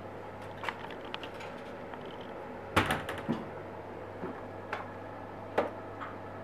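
Scattered light clicks and knocks of things being handled on a kitchen counter, with a louder clatter about three seconds in, over a steady low hum.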